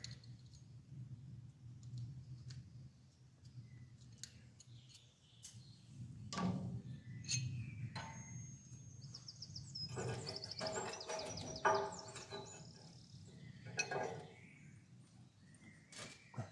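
Scattered metal clicks and knocks from chain joiners, split pins and pliers being handled, over a low steady hum. A run of high chirping comes in around the middle.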